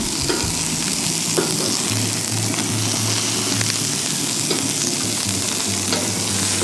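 Shell-on shrimp sizzling steadily on the hot flat griddle plate of a gas grill, with a few light clicks of metal tongs as they are turned.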